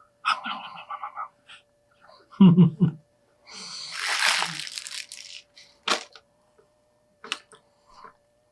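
Mealtime sounds from eating at a table: a loud dull knock about two and a half seconds in, then about two seconds of noisy hissing rustle, and two sharp clicks near the end.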